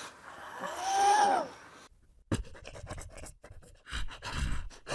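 A man making sound effects with his mouth. First comes a short whine that glides up and back down, then a rapid string of clicks and crackles, with a rougher, rasping stretch near the end.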